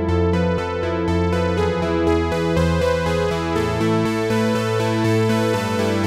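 Dave Smith Prophet-6 analog polyphonic synthesizer playing a steady run of sustained notes and chords over a low bass note, with the bass stepping down about four seconds in.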